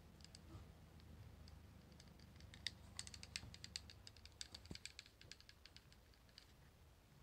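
Faint, quick, irregular clicks and ticks of the hard plastic housing of a Panasonic Dentacare EW1211 water flosser as it is worked apart by hand, thickest in the middle.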